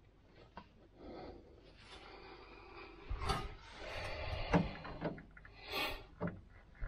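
Rubbing, scraping and a few sharp knocks as hands and a cordless ratchet are handled among hydraulic hoses and metal fittings in a machine's engine compartment; the ratchet's motor is not running.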